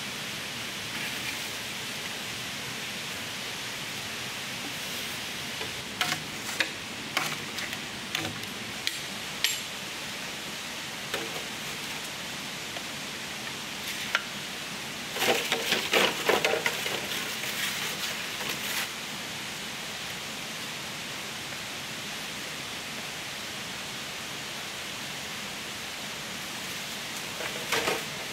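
A steady, rain-like hiss, with scattered sharp knocks about a quarter of the way in, a dense run of clattering knocks just past the middle, and one more knock near the end.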